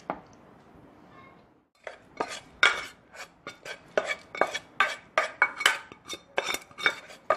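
Wooden spatula scraping and tapping against a nonstick pan as fried tempering is emptied into a steel pot of curd rice: a run of sharp knocks, three or four a second, starting about two seconds in.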